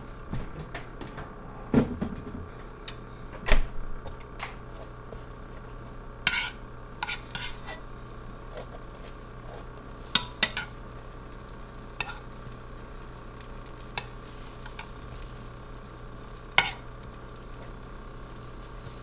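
Butter sizzling in a metal skillet as halved sub rolls toast, the hiss growing fuller near the end. A utensil knocks and scrapes against the pan every second or two as the bread is pressed and turned.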